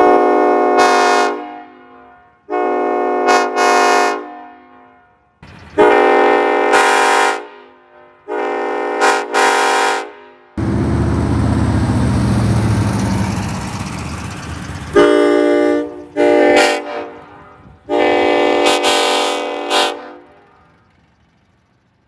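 Nathan K5LLA five-chime train horn, with its 2 bell reversed, blown in about seven blasts of a steady chord, some long and some short. In the middle, the blasts give way for about four seconds to a loud rushing noise with a low rumble.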